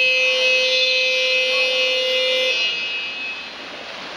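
Electronic buzzer of a water polo game clock sounding one long steady tone that cuts off about two and a half seconds in, over the splashing of players in the pool.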